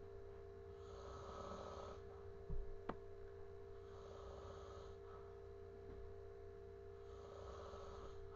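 A person snoring, a hissing snore-breath about every three seconds, three in all, over a steady faint hum. A short knock and a click come about a third of the way in.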